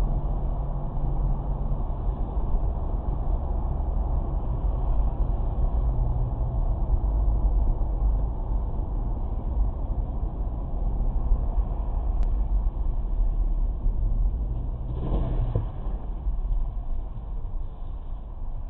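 Steady low rumble of a car's engine and tyres at highway speed, heard from inside the cabin through a dashcam microphone, with a brief swell about fifteen seconds in.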